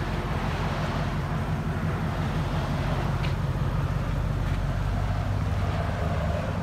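Ram 1500 5.7-litre HEMI V8 running at low revs through a straight-piped true dual exhaust with an X-pipe and the stock catalytic converters, as the pickup pulls away slowly. The engine note is a steady deep rumble.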